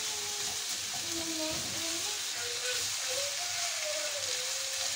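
Sliced red onions sizzling in hot oil and sugar in a frying pan as they caramelise, stirred with a spatula; a steady frying hiss.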